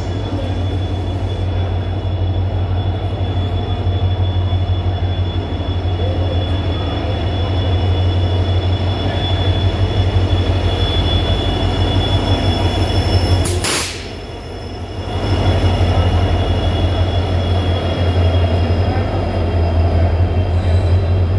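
A WDP-4B diesel-electric locomotive with a 16-cylinder two-stroke EMD 710 engine and its coaches pulling into a station platform: a steady low engine drone with a high, steady wheel-and-brake squeal as the train slows. About fourteen seconds in there is a sharp click and the level dips briefly.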